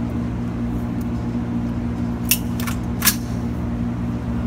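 Steady low mechanical hum of an indoor shooting range's air handling, with three short sharp clicks a little past the middle.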